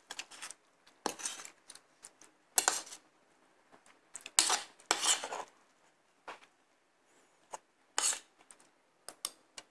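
Spoon and fork scraping and clinking on a plate while cutting and scooping food, in a few separate strokes, the longest about four to five seconds in.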